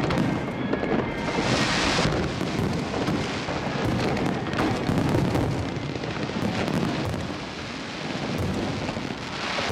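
Fireworks display at close range: a continuous rumble of shell bursts and crackling, with loud hissing rushes from fountain fireworks firing off a barge about a second and a half in and again near the end.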